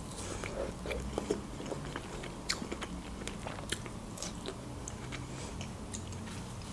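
Close-miked chewing of a strawberry: quiet wet mouth clicks and smacks scattered throughout.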